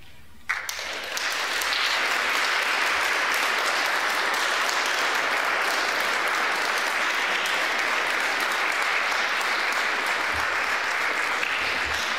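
Audience applauding. The applause breaks out about half a second in with one sharp clap, then stays dense and steady.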